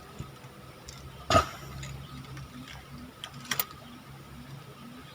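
A few sharp clicks or knocks, the loudest about a second in and a quick double click past the middle, over a faint steady background tone.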